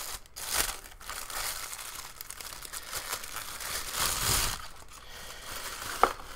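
Thin clear plastic bag crinkling and rustling as hands pull it off an alarm clock. A single sharp click comes near the end.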